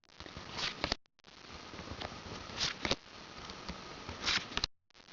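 Trading cards and booster-pack wrappers being handled, rustling in three short bursts as the cards are flipped through and set down.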